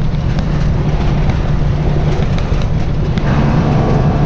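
1999 Freightliner Century Class semi's engine brake working on a downhill grade: a loud, steady, low exhaust rumble. About three seconds in, a pitched engine tone comes in on top of it.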